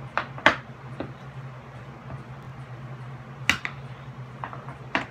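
Mini knee hockey stick and plastic puck clacking on a hardwood floor: a few sharp knocks, the loudest about half a second in and about three and a half seconds in, over a steady low hum.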